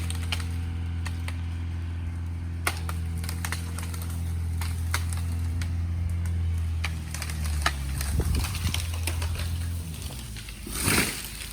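A hung-up tree coming down: an engine runs steadily under sharp cracks of breaking wood, then the sound turns rough and uneven. Near the end comes a loud crash as the tree comes through and lands.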